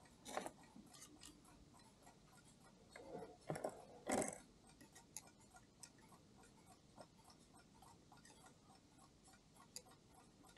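Faint, scattered light ticks and small metallic clicks, with a few louder short rustling clicks about three to four seconds in.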